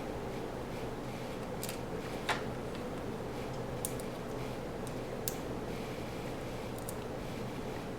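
A handful of sharp light clicks from screws and the Roomba's plastic parts being handled during disassembly, over a steady low hum.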